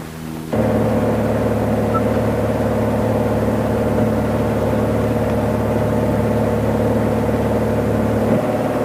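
Light aircraft's engine running steadily, heard from inside the cabin. The engine sound cuts in abruptly about half a second in and holds an even pitch.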